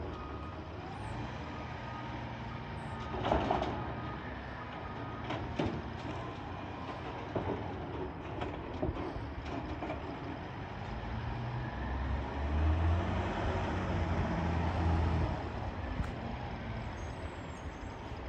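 Diesel garbage truck running, its engine revving up between about 12 and 15 seconds in as it packs a heavy load of yard waste. A short hiss comes about three seconds in, with scattered clanks.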